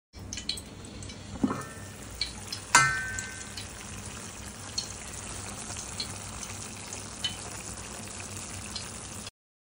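Crab curry sizzling and bubbling in an open pan: a steady hiss with scattered small pops. A metal pan lid clinks with a short ring about three seconds in.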